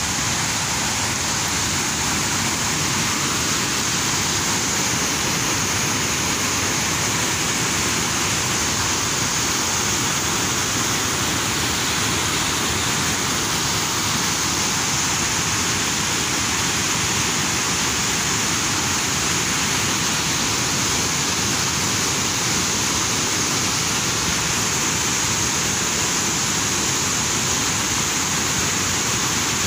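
White water of the Chalakudy River rushing steadily over rock rapids, an even, unbroken noise.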